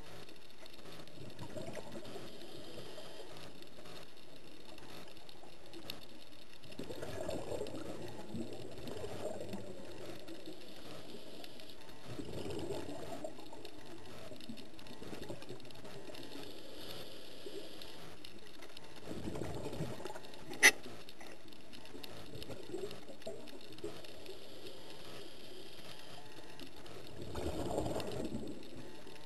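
Scuba diver breathing through a regulator underwater: four bursts of exhaled bubbles several seconds apart, with a faint hiss between some of them. One sharp click about two-thirds through is the loudest sound.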